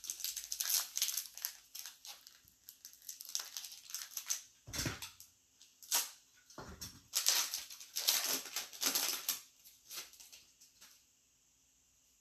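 A Select baseball card pack being torn open, its wrapper crinkling in irregular bursts that stop about a second before the end.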